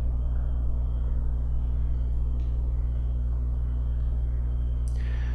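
Steady low electrical hum with a few even overtones, the background noise of the recording, with one faint click about two and a half seconds in.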